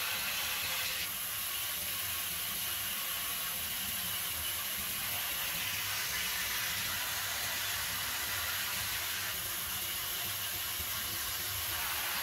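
Steady high hiss with no distinct knocks or clicks standing out.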